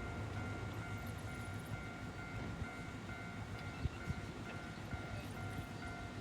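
Japanese railway level-crossing alarm ringing its steady repeating electronic ding, about three times a second, over a low steady hum. The alarm keeps sounding because the barriers are stuck down after trains stopped for the earthquake. Two short knocks come about four seconds in.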